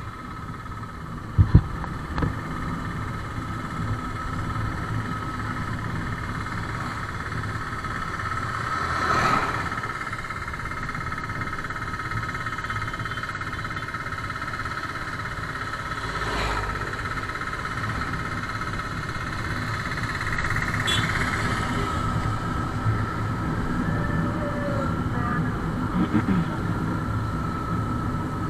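Motorcycle riding along a road: steady engine hum with road and wind noise. Two sharp knocks come about a second and a half in, and there are brief louder swells around nine and sixteen seconds in.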